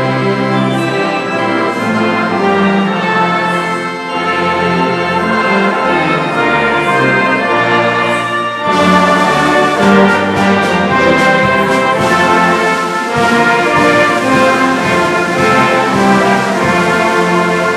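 Brass band playing a hymn tune in sustained chords, with a fuller, louder passage from about nine seconds in.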